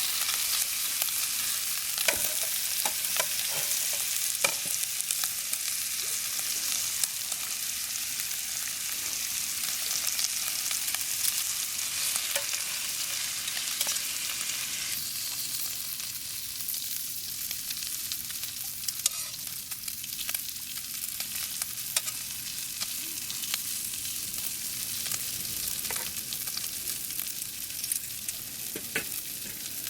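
Beef tongue sizzling in a frying pan over a campfire: a steady hiss with scattered sharp pops and crackles.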